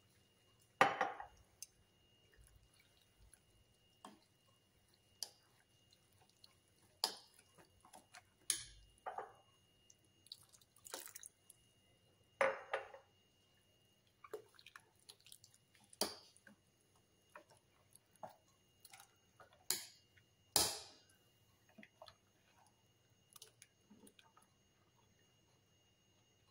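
Metal spoon stirring a thin, watery rava dosa batter in a glass bowl: irregular clinks of the spoon against the glass among soft wet sloshing.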